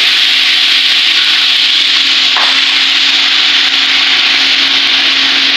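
Ginger-garlic paste frying in hot oil in a large aluminium pot: a loud, steady sizzling hiss, with a faint steady hum beneath it.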